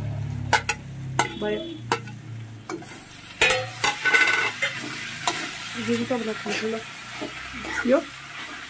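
A steel ladle stirring and scraping meat and vegetables around a hot kadai (wok) as they fry, with a steady sizzle and repeated sharp clanks of the ladle against the pan, most of them in the first half.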